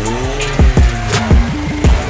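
A car exhaust with a straight-through muffler revving: the engine note climbs and falls back once near the start, under music with a heavy beat.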